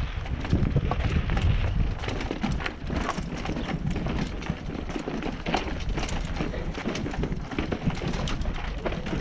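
Mountain bike rattling and clattering down a rocky descent, heard from the rider's GoPro: a rapid, irregular run of sharp knocks and clicks from the bike and tyres over rough ground, over a low rumble.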